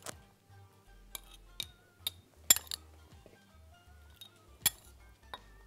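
Metal spoon clinking against glass jars and a glass bowl while pomegranate seeds are spooned in: a series of sharp clinks, the loudest about two and a half seconds in. Soft background music with held notes underneath.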